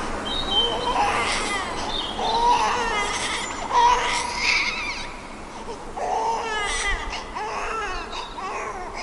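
An infant crying, a run of wavering wails, each about a second long, one after another.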